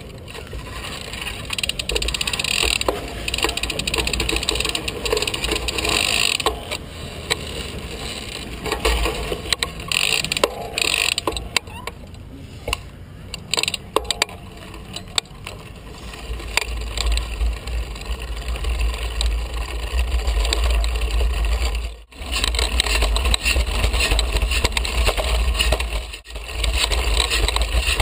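Hand-cycle being ridden: the chain and drivetrain rattle and click over a steady low rumble of motion, with the front tyre blown out. The sound drops out briefly twice near the end.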